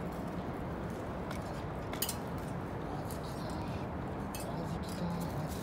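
A just-caught fish and the fishing tackle being handled over a concrete wall: a few short sharp clicks and taps, one about two seconds in and two more near the end, over steady background noise.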